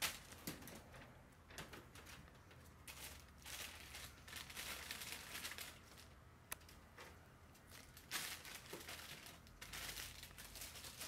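Plastic bag crinkling and rustling in irregular stretches as a hand rummages in it among leafy greens.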